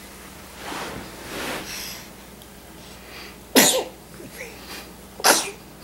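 Two short, sharp sneezes about two seconds apart, with a breathy huff shortly before them.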